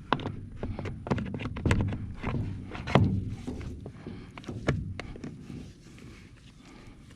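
Irregular clicks and knocks of the chainsaw's plastic cover and housing parts being handled and fitted by hand, tapering off near the end.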